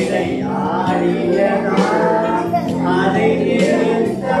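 A man and a group of children singing an action song together, with a musical accompaniment.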